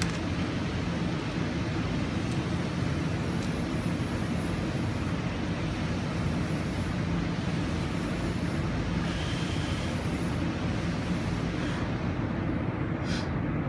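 Steady low mechanical hum that does not change, with a few faint clicks near the end.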